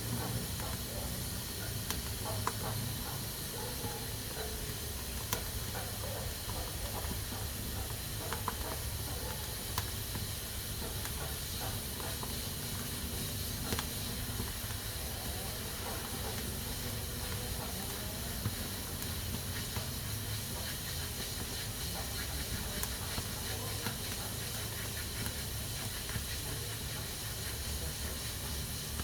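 Pressure cooker hissing steadily as steam escapes its valve, with a low rumble beneath and a few faint scattered clicks.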